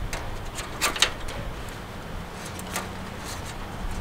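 Guy wire being twisted back on itself by hand: a few sharp clicks and scrapes of the wire, the loudest about a second in.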